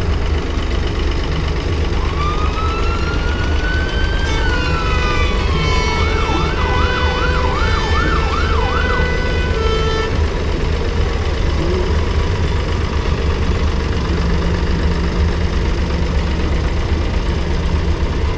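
Vintage tractor engines running steadily as the tractors drive past in a line. About two seconds in, an electronic siren sounds a rising then falling tone, then a fast up-and-down yelp about twice a second, and stops about ten seconds in.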